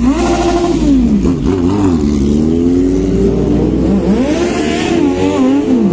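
A group of superbikes, a Suzuki Hayabusa and Kawasakis among them, revving and pulling away from a standstill. Several engine notes climb and drop again and again as the bikes accelerate and change gear.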